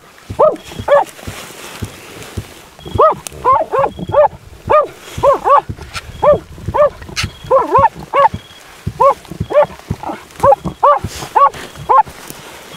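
Working Jack Russell terrier baying at a badger in its den: a long run of sharp barks, about two a second, after a short pause near the start.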